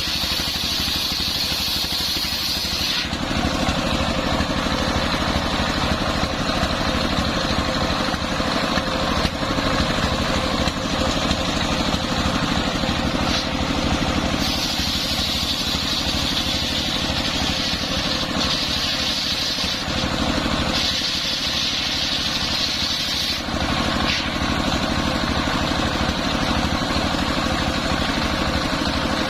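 Homemade engine-driven circular sawmill running steadily while sawing a coconut-palm trunk, its sound shifting every few seconds as a high whine comes and goes.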